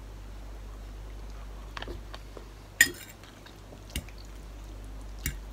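A metal fork clinking against a bowl of noodles while eating: a few separate sharp clinks, the loudest about three seconds in.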